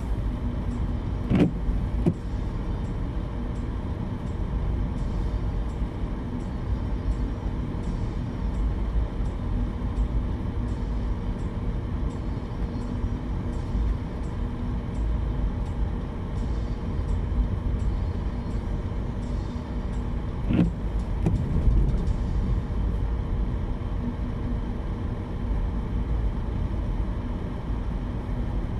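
Car driving on a snow-covered road, heard from inside the cabin: a steady low rumble of engine and tyres with a constant hum. A brief sharp sound comes about a second and a half in, and again about twenty seconds in.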